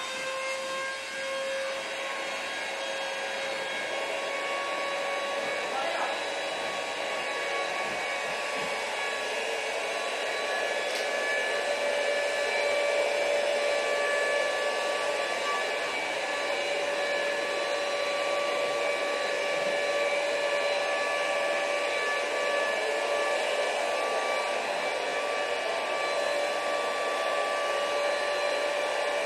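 Steady whine of a small electric motor or blower. Its pitch creeps up slightly over the first half, then holds.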